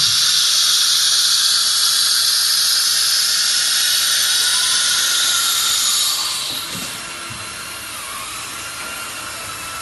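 Small CNC router's spindle and cutter milling aluminum: a loud, steady, high-pitched whine and hiss. It grows quieter about six seconds in and carries on at the lower level.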